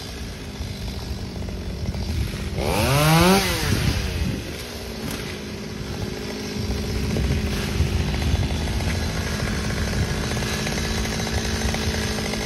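A two-stroke chainsaw is revved up and back down about three seconds in, then runs steadily and louder through the second half.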